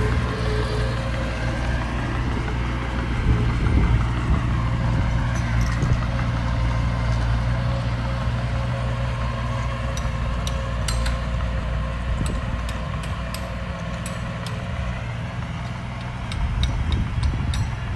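Diesel engine of earthmoving machinery running steadily, swelling briefly about three to four seconds in. In the second half come a series of sharp clicks and clanks.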